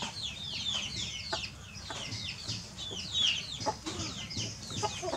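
Chickens chirping nearby: a steady run of short, high chirps, each falling in pitch, several a second.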